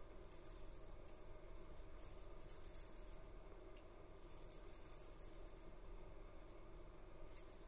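Faint, high-pitched chirring clicks coming in short irregular spells every second or two, over a low steady hum.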